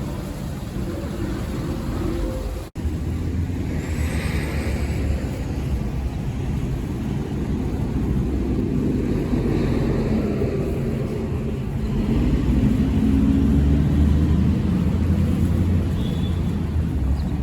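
Steady low rumble of city traffic, with a momentary cut-out about three seconds in.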